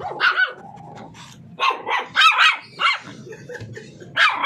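Small puppy yapping: a run of short, high-pitched barks in quick bursts, with a gap of about a second between the first bark and the rest.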